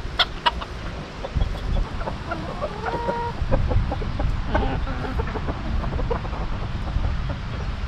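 Chickens clucking, with a few sharp knocks over a steady low rumble.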